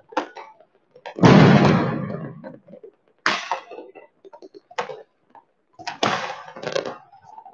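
Fireworks going off: one loud bang about a second in that rumbles and echoes away over a second or so, then four sharper, shorter bangs.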